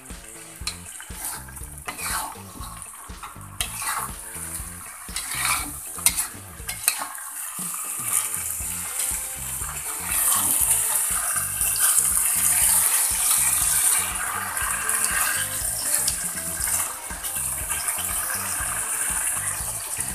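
Metal spatula scraping and clinking against a wok as shrimp in spice paste are stirred and fried. The sizzling hiss gets louder about halfway through.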